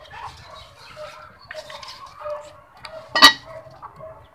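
Chickens clucking in the background, with one sharp, loud sound about three seconds in.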